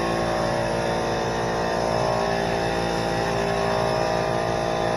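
Small 21-gallon air compressor running steadily under load, with the even hiss of an LVLP spray gun spraying paint.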